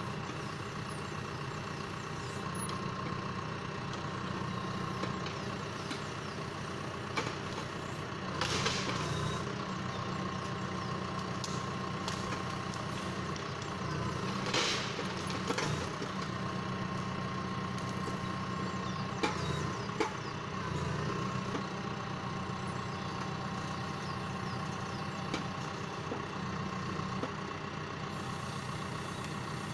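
John Deere 6115M tractor engine running steadily while it powers the timber trailer's hydraulic crane loading logs. A steady whine sits over the engine, with a handful of short knocks and clunks as the crane and logs are handled.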